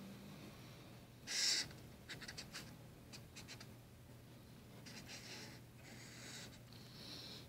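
Marker pen drawing lines on paper. One longer, louder stroke comes about a second and a half in, then several short scratchy strokes as a dashed line is drawn.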